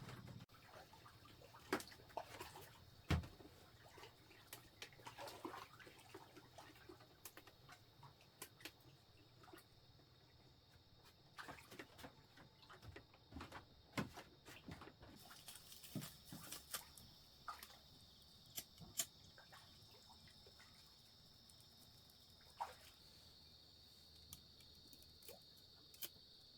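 Quiet outdoor ambience: scattered faint clicks, ticks and small drips, with a steady high-pitched insect trill in the background.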